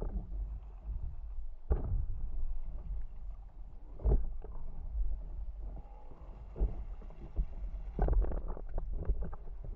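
Wind buffeting the microphone over water slapping against a paddleboard, with a few sharp splashes. About eight seconds in comes a run of heavy splashing as a dog is hauled out of the water onto the board.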